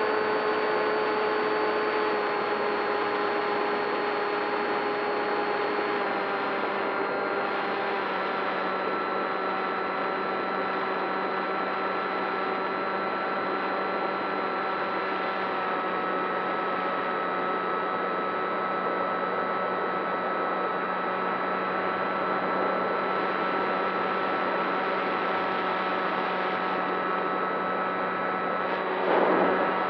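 Electric motor and propeller of a Skywalker FPV model plane running at a steady cruise throttle: a steady whine of several tones over a noise haze, shifting slightly in pitch a few times. Near the end there is a short louder burst of rushing noise.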